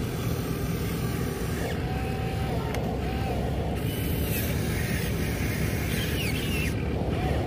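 RC scale excavator's electric motors whirring steadily as its boom and arm lower the bucket into a pile of dirt.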